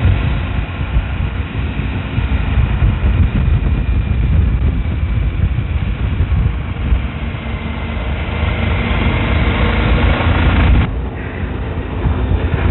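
Suzuki V-Strom DL1000's V-twin engine running at road speed, with heavy low wind rumble on the microphone. The sound changes abruptly about eleven seconds in.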